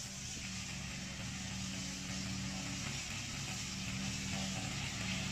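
Engine of a Black Shark 800 remote-controlled tracked mower running steadily under load as it cuts through reeds, with a steady hiss above the engine note. The engine note wavers briefly about three seconds in.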